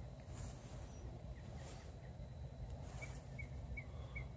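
Faint outdoor night ambience: short, high chirps from a cricket repeat every half-second or so, more of them after about three seconds in, over a steady low rumble.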